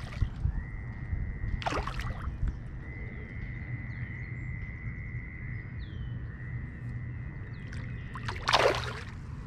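Water sloshing and splashing as a hooked bass is played in at the shallows, with two louder splashes, about two seconds in and near the end. Small bird chirps and a thin steady high tone sound faintly behind.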